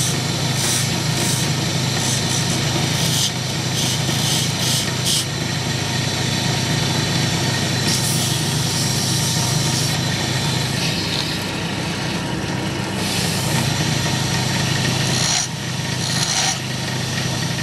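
Small wood lathe running with a steady hum as a hand chisel scrapes patterns into a spinning wooden cigarette holder, in short scratchy bursts. About eight seconds in, abrasive cloth rubs against the turning piece, and near the end the chisel scrapes again.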